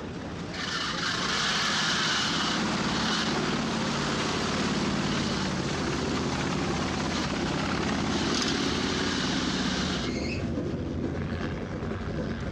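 Truck engine revving hard with the wheels spinning in mud, stuck in two-wheel drive because its four-wheel drive is broken. The revs and spinning start about half a second in, hold steady for about nine seconds, then ease off.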